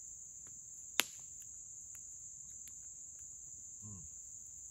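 Steady high-pitched chorus of insects in the woods, with one sharp click about a second in and a few faint ticks.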